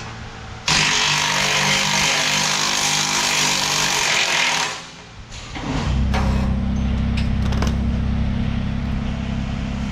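Handheld power tool running in one loud burst of about four seconds, then cutting off. About six seconds in, a steady low machine hum starts and holds, with a few sharp clicks over it.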